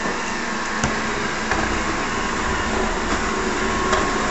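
Samsung robot vacuum running at the start of a cleaning run: a steady motor and suction whirr, with a few light clicks.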